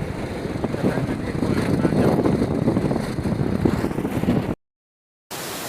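Loud, rough rumbling of wind buffeting the microphone, cutting off abruptly about four and a half seconds in.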